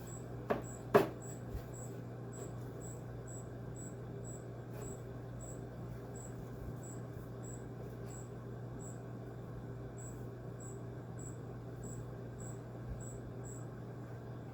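Two sharp knocks about half a second and a second in, over a steady low hum, with a faint high-pitched chirp repeating two or three times a second.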